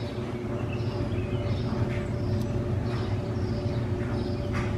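Steady low mechanical hum with two faint steady tones in it, and short high bird chirps repeating over it.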